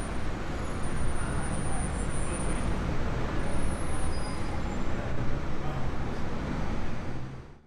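Steady road traffic noise from a city street, with a low engine hum in the second half; it fades out at the very end.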